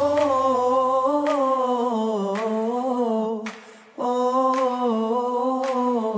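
Song with the bass and beat dropped out, leaving a voice humming long wordless notes: one long note, a brief fade a little past halfway, then another.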